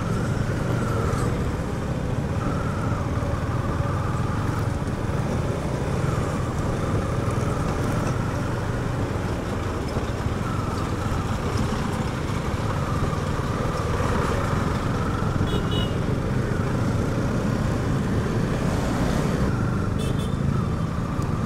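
KTM Duke 250 single-cylinder motorcycle engine running steadily while riding in city traffic, with a constant low rumble of engine and wind noise on a chest-mounted camera and other motorcycles and vehicles running around it.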